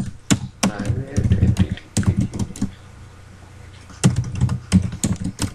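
Computer keyboard typing: quick clusters of keystrokes, with a pause of about a second a little past the middle.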